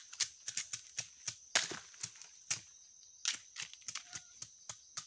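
Machetes chopping and shaving bamboo sticks in quick, irregular cuts, a couple of strokes a second, the sharpest about a second and a half in. A steady high insect drone runs behind.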